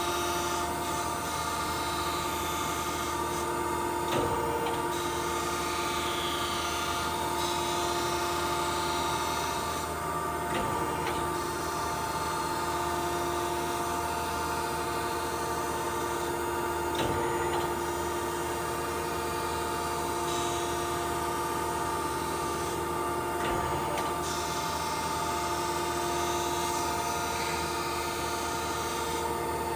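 Okamoto ACC-2040DX2 hydraulic surface grinder running its automatic grinding cycle. There is the steady whine of the spindle and hydraulics, and a hiss from the wheel grinding vise jaws that rises and falls. A light knock comes about every six and a half seconds.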